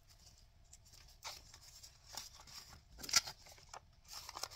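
Paper bills and a plastic binder pocket rustling as cash and a paper card are handled and slipped in. It comes as short brushes and crinkles, the loudest about three seconds in.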